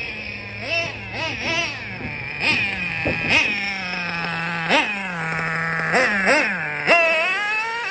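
Novarossi 2.5 nitro engine in a Losi LST RC truck idling between a series of quick throttle blips, each a sharp rise in pitch that drops straight back. Near the end a longer rev falls away slowly.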